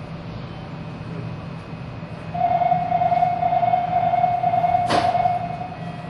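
Nagoya subway 6050 series train with a steady low rumble. About two seconds in, a loud steady high tone starts, holds level for about three seconds and fades near the end, with one sharp click shortly before it stops.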